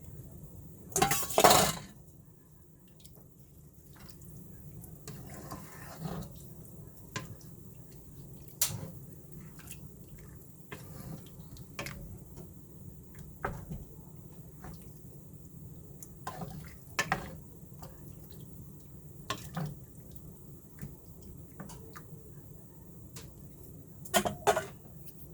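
Kitchen utensils clinking and knocking against dishes and pots in scattered single strokes, with a louder clatter about a second in and another near the end.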